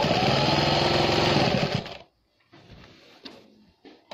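Sewing machine stitching in one burst of about two seconds, then stopping, followed by soft rustling of fabric being handled and a single small click.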